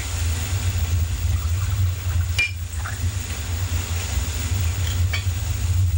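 Steady low rumble with a hiss, broken by two short, light clinks, one about two and a half seconds in and one near the end.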